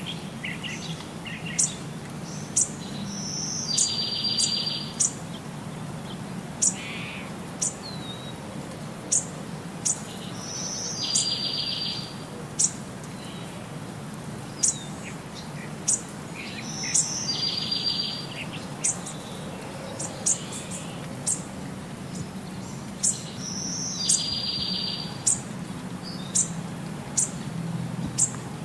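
Birds chirping: short, sharp high chirps every second or so, with a buzzy trill about a second long that comes back roughly every seven seconds, over a steady low hum.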